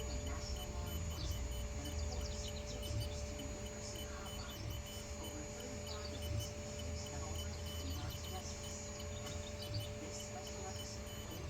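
Sculpfun S9 diode laser engraver running: a steady hum with a few fixed whining tones, and faint, irregular ticking as the head moves.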